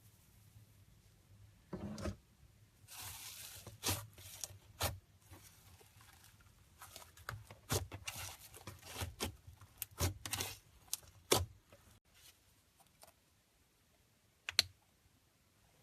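Slime worked by hand: irregular sticky clicks, pops and snaps, with a short crackling tearing stretch about three seconds in, thinning out after about twelve seconds.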